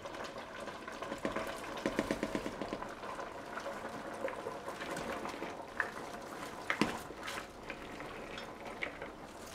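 A large pot of broth boiling with a steady bubbling, while handfuls of shredded white cabbage are tipped in from a plastic bowl with soft rustling and crackling. A few sharp clicks stand out near the middle.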